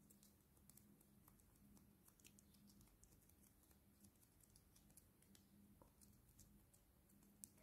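Near silence: faint scattered clicks and taps of fingers pressing modeling dough into a plastic mold, over a faint steady low hum.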